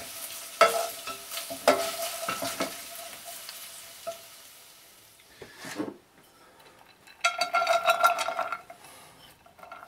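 Oil sizzling in a hot pan with two sharp clinks of a utensil against the pot, the sizzle fading away over several seconds. About seven seconds in comes a loud burst of clatter and sizzle as chopped carrot and garlic are tipped from a bowl into the pan.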